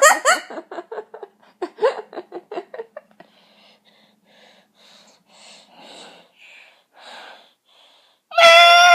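A person's quick run of short snorts, fading into faint breathy sniffs about twice a second, then a loud high-pitched squeal of about a second near the end that drops in pitch as it stops.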